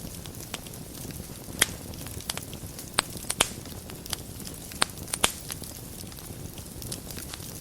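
Wood fire crackling in a fireplace: a steady low rustle of burning with sharp pops scattered through it, the strongest about a second and a half, three and five seconds in.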